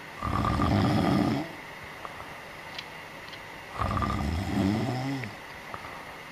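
A sleeping cat snoring: two long snores about three and a half seconds apart.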